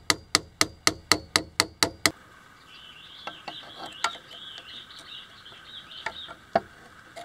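Quick, even metal tapping, about four strikes a second, on the bottom edge of a stuck planer blade to drive it out of the cutterhead; it stops about two seconds in. A few faint clicks follow as the loosened blade is worked free by hand.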